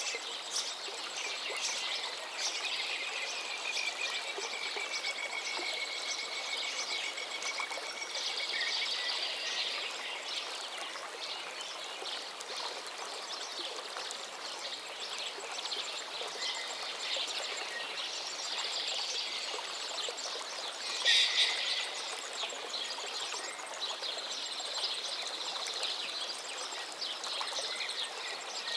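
Birds chirping and calling over a steady background hiss, with a long drawn-out call early on and one louder call about 21 seconds in.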